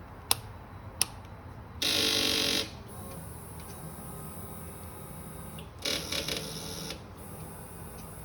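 Starter relay on a 2016 Kawasaki Ninja 300 chattering as the starter button is pressed with a dead battery. Two sharp single clicks come first, then a loud rapid buzzing clatter of clicks for under a second. A second, more uneven burst of about a second follows a few seconds later. The battery is too weak to turn the engine over.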